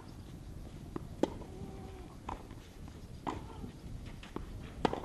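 Tennis rally on a clay court: sharp pops of the ball coming off the rackets every one and a half to two seconds, with softer ball bounces in between.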